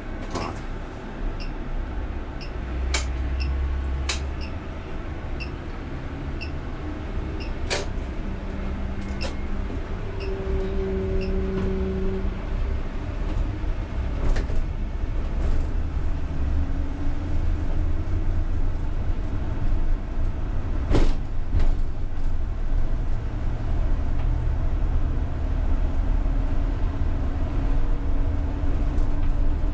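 Inside the cab of a UTTZ-6241.01 (MAZ-203T) trolleybus: steady low running rumble and road noise that grow louder as the trolleybus gathers speed, with a faint motor whine rising slowly in pitch in the second half. Light regular ticking during the first ten seconds or so, and a few sharp knocks and rattles from the body.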